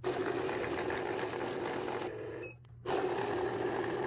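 Electronic bill counter running as it feeds a stack of banknotes through, a steady mechanical whirr. About two seconds in it stops briefly, gives a short high beep, and starts counting again.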